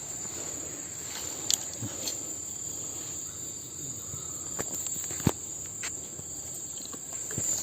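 A steady high-pitched insect chorus, with a handful of scattered sharp clicks and knocks, the loudest about five seconds in.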